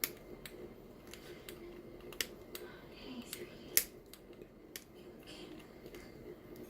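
Flush side cutters snipping the excess component leads off a circuit board: a series of sharp, irregularly spaced snips, the loudest near the middle.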